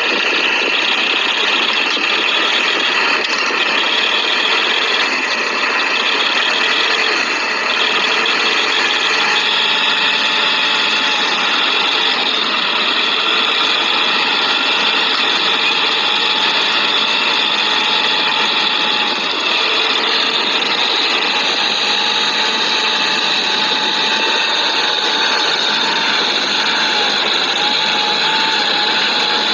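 Tractor diesel engines running hard with a steady mechanical rattle, working under load as one tractor on cage wheels tries to tow another out of deep mud.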